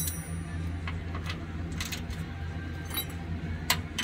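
Scattered metallic clicks and clinks of a socket ratchet and wrench being handled and fitted onto a sway bar link nut, roughly one a second, over a steady low hum.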